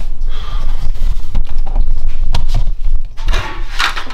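Handling noise from a camera-mounted microphone as the camera is carried and swung about: irregular knocks and rubbing over a low rumble, loudest near the end.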